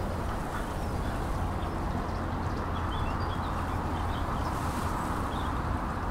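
High-reach demolition excavator's diesel engine running steadily, a constant low hum and rumble, with a few faint high chirps above it.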